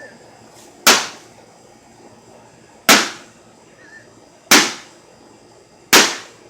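Four hard blows striking a microwave oven's metal casing, each a sharp crack with a short ringing tail, spaced about one and a half to two seconds apart.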